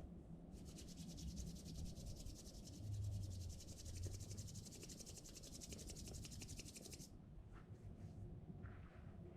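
Fishing reel being cranked, a high, fast, even ticking rasp that starts about half a second in and stops suddenly after about six and a half seconds.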